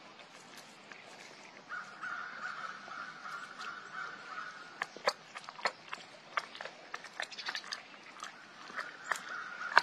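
Tiger crunching a bone with its back teeth: sharp, irregular cracks and snaps, starting about halfway through and coming thick and fast toward the end. A steady high tone runs in the background for a few seconds before the cracking starts, and comes back near the end.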